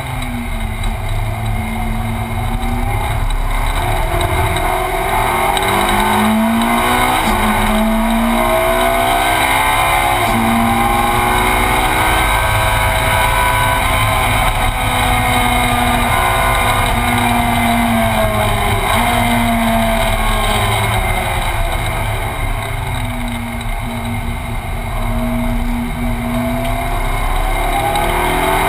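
Ferrari 458 Challenge's V8 engine heard from inside the cabin at racing speed. The pitch repeatedly climbs and drops back as the car accelerates and changes gear. It eases off briefly about two-thirds through, then builds again near the end.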